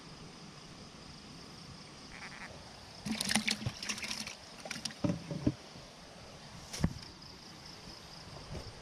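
A small catfish splashing in a bucket of water for about a second, roughly three seconds in, followed by a few sharp knocks and one more a little later as gear is handled.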